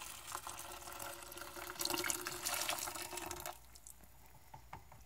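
Boiling water poured in a stream from an electric kettle into a crock pot of thick soup, growing louder about two seconds in and stopping suddenly past the middle.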